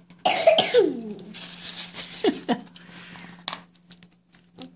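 Small plastic keycaps rattling and clattering in a small plastic bag as it is handled, with a couple of short falling squeaks.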